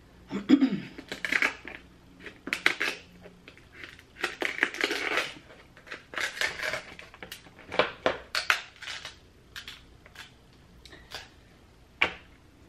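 Kitchen shears cutting through a king crab leg's shell: repeated, irregular crunching and cracking with sharp clicks. It thins to a few scattered clicks near the end.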